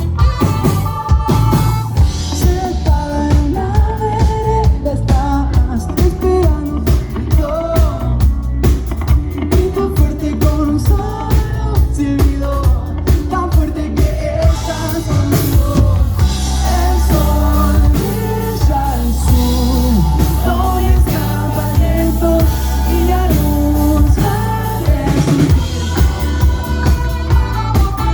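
Live rock band playing a song: a sung lead vocal over drum kit, bass and guitars, with a steady beat.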